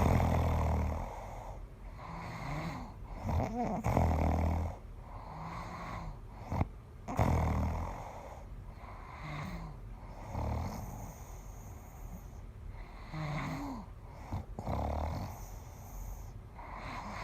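A sleeping person snoring: a low rattling snore about every three seconds, with breathy noise between the snores.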